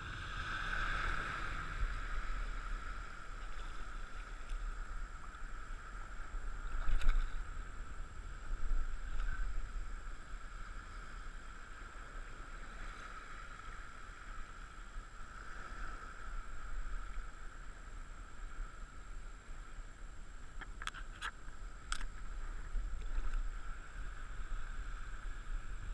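Water lapping and sloshing close to the microphone, with a low wind rumble on a head-mounted camera. A few sharp clicks sound about a quarter of the way in, and again in a short cluster about four-fifths through.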